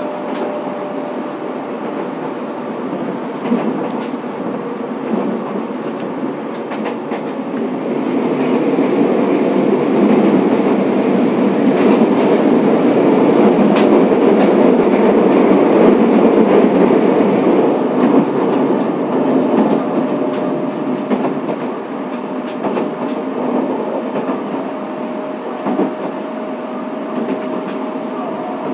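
Running sound from inside a Fukuoka City Subway 2000-series electric train car: a steady rumble of wheels on the rails with occasional clicks, growing louder for several seconds in the middle and then easing off. A faint steady hum is heard at the start and again near the end.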